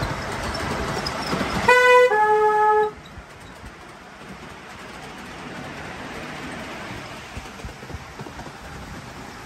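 A miniature railway locomotive sounds a short two-note toot about two seconds in, a higher note then a longer lower one, as the train enters a tunnel. Before it, the train's running rumble.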